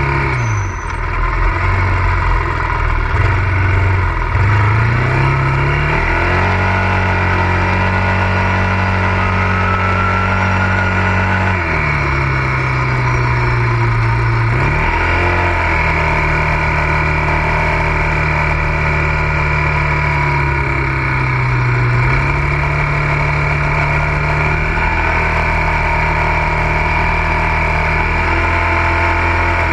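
ATV engine running under way, its pitch dropping and climbing back up several times as the throttle or speed changes.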